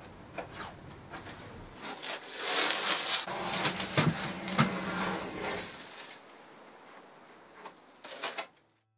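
Masking tape being peeled off the edge of a freshly spray-painted wooden cabinet: a rough tearing crackle, loudest in the middle, with a few sharp clicks, then fading to quieter handling sounds.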